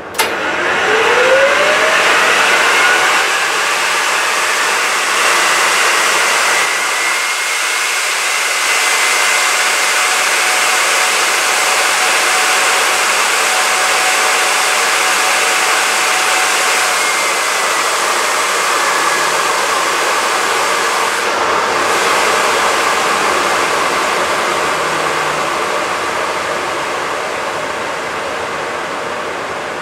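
Fairchild J44 turbojet lighting off with a sudden pop, then a loud rushing roar. A whine rises over the first couple of seconds, holds steady, and falls away after about seventeen seconds as the engine spools down.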